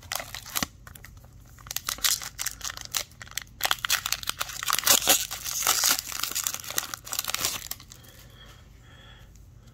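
Foil wrapper of an Upper Deck Series 2 hockey card pack being torn open and crinkled in the hands: a dense run of sharp crackles, loudest in the middle, that stops about eight seconds in.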